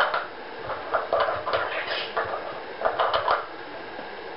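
Hard plastic clicks and knocks as the white blocks of a Nina Ottosson Dog Smart puzzle are handled and set onto its plastic base, irregular, with a small cluster about three seconds in.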